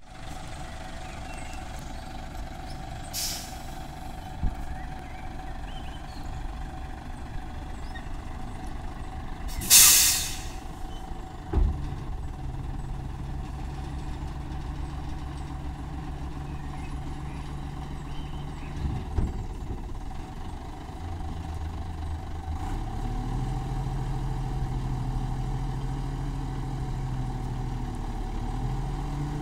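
Front-loader garbage truck running in place, with two loud bursts of air hiss and a couple of sharp clunks early on. Then its engine note steps up and holds steady while the hydraulic front arms lift a bin up over the cab.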